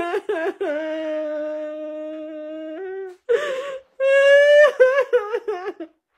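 A woman sobbing: short broken cries, a long wail held for about two seconds, a sharp gasping breath, then another wail that breaks into shaky sobs. It cuts off suddenly near the end.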